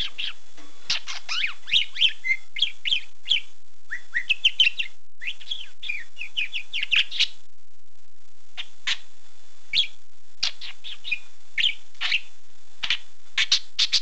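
Pet budgerigar chirping and warbling in quick runs of short, gliding chirps. The chirps come thick and fast for the first half, stop for about a second, then return more sparsely.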